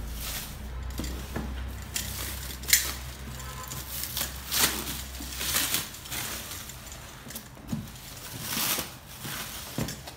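Clear plastic shrink wrap being pulled off a cardboard box and crumpled by hand: irregular crinkling and rustling, with one sharp crackle about a quarter of the way in.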